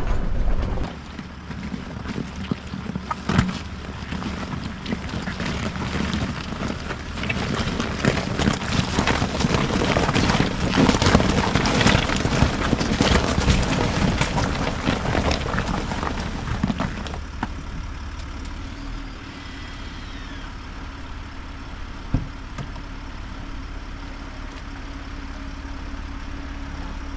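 Land Rover Discovery 4 on the move, a dense crackling and crunching under the tyres over rough frozen ground. About two-thirds of the way through it eases to a steadier, quieter engine hum.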